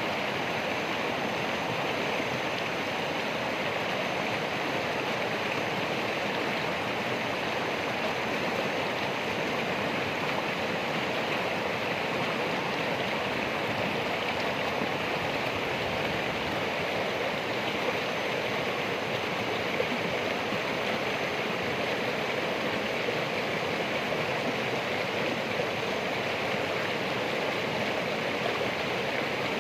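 Flowing water of a stream rushing steadily, an even hiss without pauses or changes.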